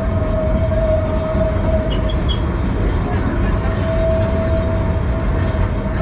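Ride train rolling along the track: a steady, dense rumble of wheels on rail, with one continuous high steady tone running over it.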